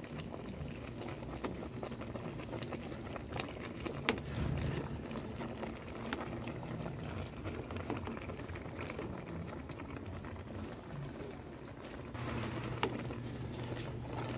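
Pot of beef bulalo broth bubbling at a simmer, with scattered small pops and a couple of sharper clicks, about four seconds in and near the end. A low steady hum comes in near the end.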